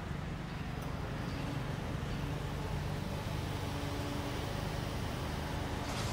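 Steady low hum of a Nissan NV200 van's engine idling at the kerb, over the quiet hiss of a city street.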